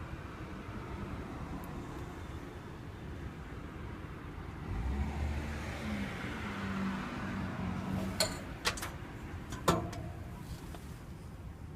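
Outdoor background noise with a motor vehicle running by in the middle, then a few sharp clicks or knocks close together.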